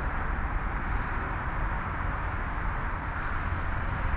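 Steady wind noise on the microphone, with a low buffeting rumble.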